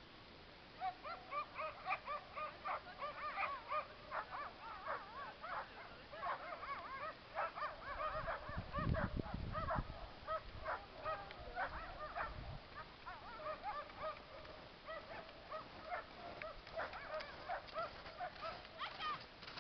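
A team of sled dogs barking, yipping and whining in many short, overlapping high calls. A brief low rumble breaks in about halfway through.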